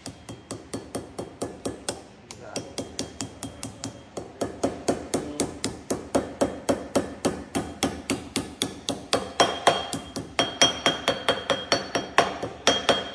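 A small hammer tapping a new wiper seal into the steel gland of a Case 621 wheel loader's bucket curl cylinder, which is clamped in a vise. The taps are quick and even, about four a second, and they get harder and louder over the second half as the seal is driven home.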